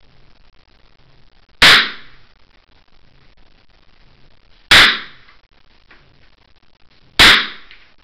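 Kalashnikov (AK-47) rifle firing three single shots, about three seconds and then two and a half seconds apart, each very loud with a short echoing tail.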